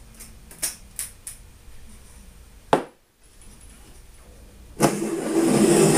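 Small metal hardware clinking: nuts and threaded steel rods knocking together while being fitted, a few separate clicks and then a louder rattle near the end.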